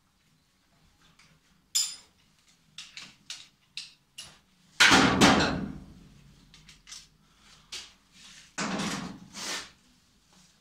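Irregular metal clicks and knocks as a ratchet wrench with a long extension works the bolts on a classic Ford Mustang's steel front fender. There is a loud ringing clank about halfway through, and two more clanks near the end.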